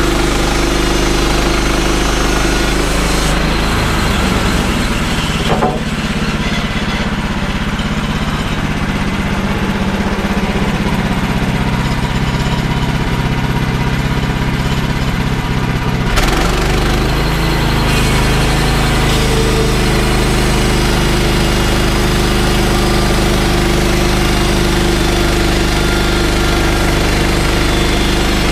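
Gas engine of a Woodland Mills portable bandsaw sawmill running steadily. For about twelve seconds in the middle the sound changes as the band blade cuts through the fir log, ending in a sharp clunk, after which the engine settles back to its earlier steady note.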